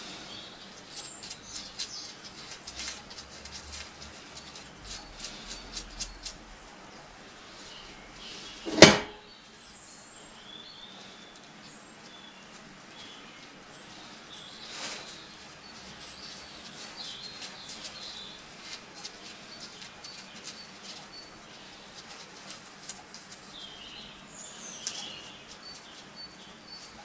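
Small metallic clicks and taps of a hand tool working the threaded fittings of a David Brown 996 tractor's hydraulic valve chest held in a vise, busiest over the first third, with one loud sharp metal knock about nine seconds in.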